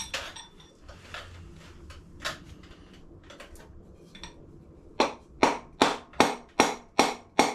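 Wooden mallet striking a brass drift to knock a shaft and its bearing out of a gearbox casing. The first few seconds hold only a few light clinks. About five seconds in, a steady run of sharp blows starts, about two and a half a second, each with a short metallic ring.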